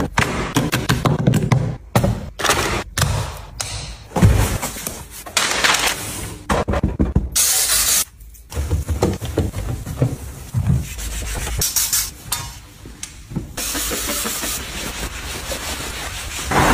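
A quick run of cleaning sounds: hands handling and wiping a hair dryer on its stand, a trigger spray bottle spritzing cleaner onto metal drawers, and a sponge scrubbing a vinyl barber chair with a steady hiss near the end.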